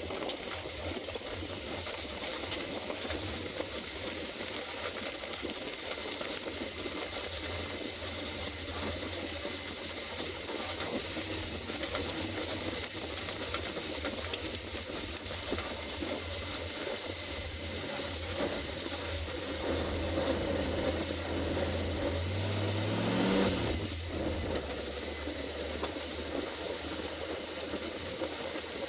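Jeep engine running as the Jeep drives a dirt trail, with a steady low hum and road noise. About three-quarters of the way through it revs up, rising in pitch, then settles back.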